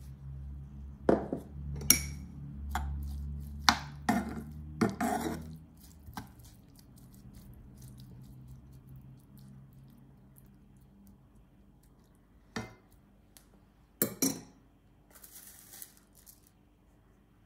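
Plastic spatula knocking and scraping against a nonstick frying pan while stirring shrimp and chives: a quick run of clatters over the first six seconds, then a couple more taps around twelve to fourteen seconds in.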